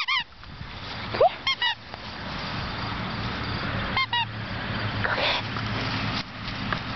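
Young puppy barking: short, high-pitched yaps, with a rising whine-like yip about a second in, a quick run of three or four yaps just after, and another yap about four seconds in.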